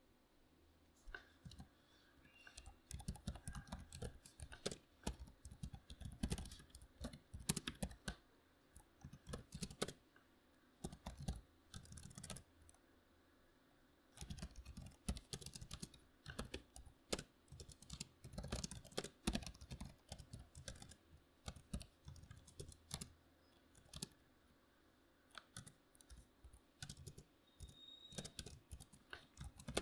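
Typing on a membrane computer keyboard: quick runs of soft keystrokes starting about a second in, broken by short pauses.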